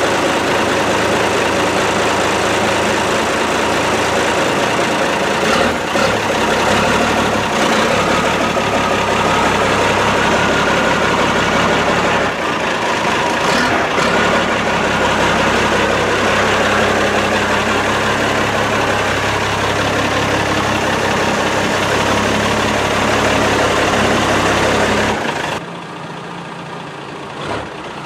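Old dump truck's engine running steadily at idle. About 25 seconds in, the sound drops off suddenly and sharply.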